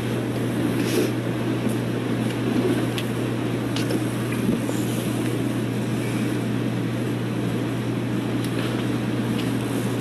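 Steady rushing background noise with a constant low hum underneath and a few faint clicks.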